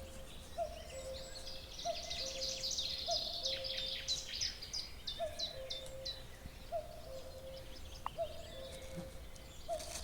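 Wild birds singing: a fast, varied high-pitched songbird song, busiest in the first half, over a low two-note call repeated steadily about once every second and a quarter.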